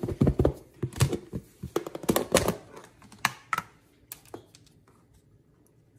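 Floured chicken pieces being shaken in a lidded plastic container: a quick, irregular run of clacks and thuds that stops about three and a half seconds in, followed by a few faint clicks.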